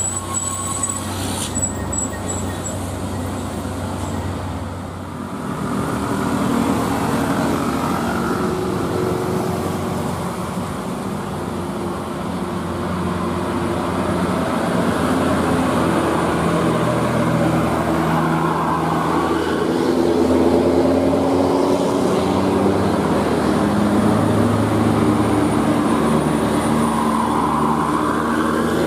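Large coach buses' diesel engines pulling up a steep hill one after another, the engine note rising and falling as they climb past.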